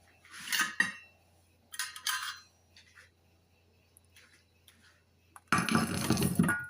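Kitchen utensils clinking and clattering against a bowl or pan: two short bursts in the first couple of seconds, then a louder, longer run of clattering near the end.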